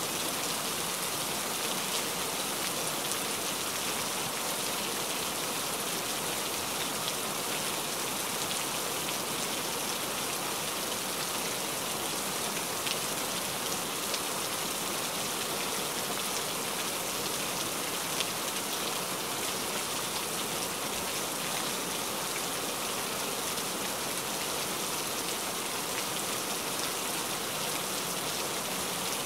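Steady rain falling, an even hiss of drops on leaves and ground, with a few sharper single drop hits here and there.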